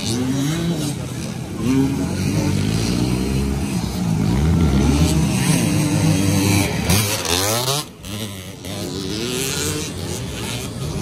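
Several dirt bike engines revving on a motocross track, their pitches rising and falling over one another. About seven seconds in, one engine revs up sharply, then the sound drops away briefly.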